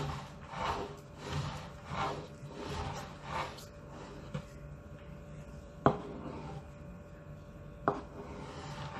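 A plastic cake scraper smoothing cream around the side of a cake while the wooden cake board is turned by hand: about six soft rubbing and scraping strokes in quick succession, then two sharp knocks about two seconds apart.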